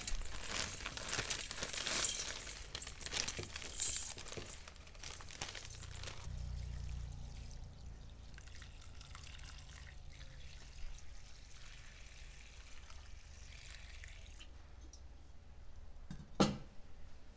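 Plastic wrapping crinkling as dried rice vermicelli is pulled out into a metal bowl. From about six seconds in, water pours steadily into the bowl over the noodles for several seconds. A single sharp knock comes near the end.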